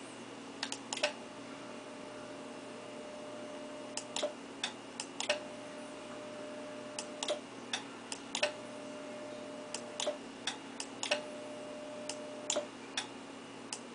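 A KL500 linear amplifier and its transceiver keyed on and off four times, with a fifth keying starting near the end. Each key-down and key-up sets off a short cluster of sharp relay clicks. A steady mid-pitched tone sounds through each one-and-a-half to three-second transmission, over a constant low hum.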